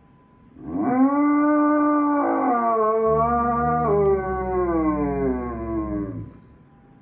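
Pet dog howling: one long, siren-like howl of about six seconds that holds its pitch, then steps down and slides lower before fading out near the end.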